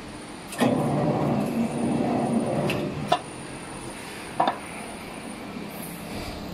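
Semi-automatic can seaming machine running a seaming cycle for about two and a half seconds, rolling the metal lid onto the can, and ending in a sharp click. A single knock follows about a second later.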